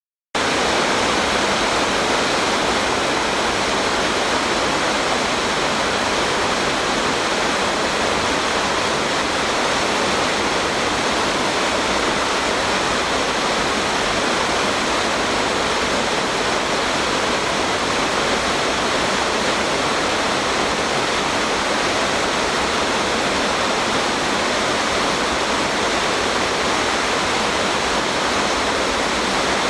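Waterfall in a mountain stream: a loud, steady, unbroken rush of falling water.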